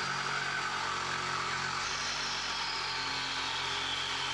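Milwaukee cordless reciprocating saw running steadily under load, its blade cutting through a steel crossmember piece, with a high motor whine that sinks slightly in pitch partway through.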